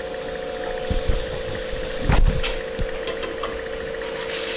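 2x72 belt grinder running with a steady hum, the knife off the belt, and a few dull knocks, the loudest about two seconds in. Near the end the blade goes back onto the moving belt and a grinding hiss starts.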